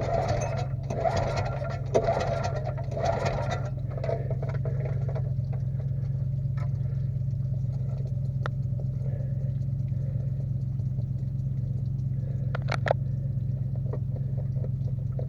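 A 9 hp engine, just pulled from a pond and drained of water, being cranked over in several short bursts about a second apart during the first four seconds without catching. A steady engine hum runs underneath.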